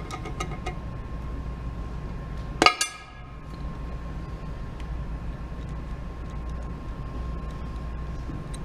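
A single sharp metallic clink about a third of the way in that rings briefly, over a steady low hum.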